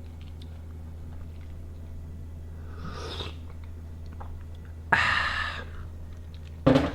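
Someone chewing a mouthful of Toblerone chocolate. A sudden louder sound comes about five seconds in and fades, and a short knock follows near the end.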